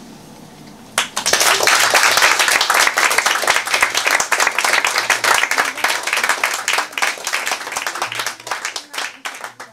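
Audience applauding, breaking out suddenly about a second in after a short lull, then thinning to scattered claps near the end.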